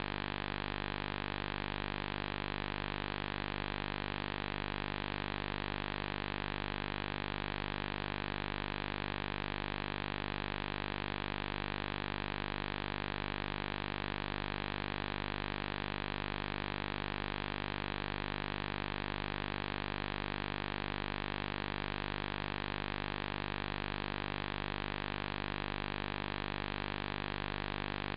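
Steady electrical hum with hiss, unchanging and with no programme sound. This is the empty audio track of a video recording left running on a blue no-signal screen.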